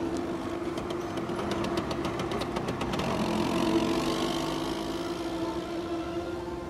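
Soft sustained chords of a film score, the held notes shifting to a new chord about halfway through, over street ambience. A quick run of light clicks sounds during the first three seconds.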